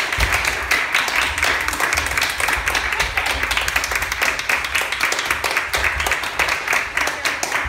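Audience clapping and applauding, a dense patter of many hands, with low thumps underneath.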